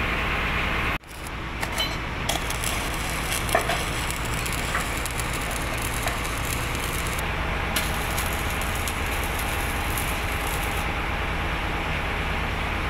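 Stick (arc) welding on steel: the electrode crackling and sizzling steadily, over a steady low hum. The sound breaks off sharply for an instant about a second in, then resumes.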